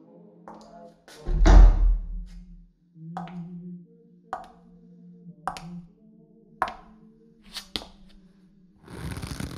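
A heavy, deep thud, then five sharp taps or knocks about a second apart, over a low steady drone. Near the end comes a rapid flurry of clicks.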